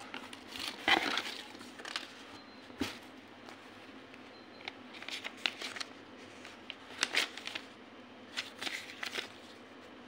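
Cardboard box flaps and a paper instruction booklet being handled: rustling and crinkling in short bursts, loudest about a second in.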